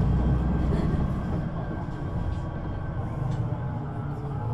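The DAF engine and Voith gearbox of a Solaris Urbino 18 III articulated bus running while under way, heard on board as a steady low rumble. The level eases a little about a second in.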